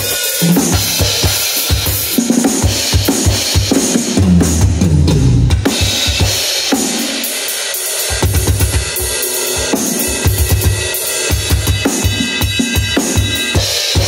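Drum kit played as a busy fusion-style groove: the Pearl Mimic Pro's triggered kick, snare and toms under acoustic cymbals. The kick drum is dense, and there is a tom fill running down in pitch about four seconds in.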